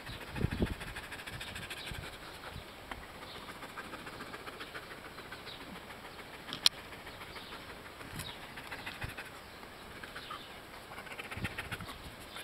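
Faint outdoor ambience with scattered small bird chirps, a few low bumps about half a second in, and one sharp click about six and a half seconds in.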